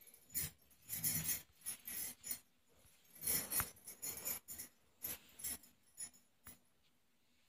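Handling noise on a smartphone, picked up by its own microphone: irregular rustling and scraping with small clicks, coming in short bursts and loudest about a second in and again after three seconds.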